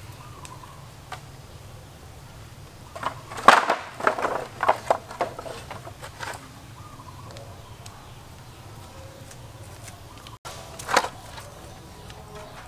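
Cut bamboo sections knocking and clattering together as they are set down on a pile: a run of hollow knocks for about three seconds starting a few seconds in, then a single knock later on.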